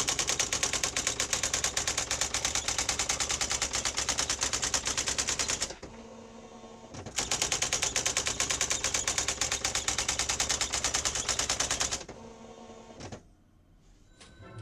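Sears 10k40 electronic daisy wheel typewriter printing: rapid, evenly spaced hammer strikes of the daisy wheel in two long runs with a short pause between them, falling quiet near the end.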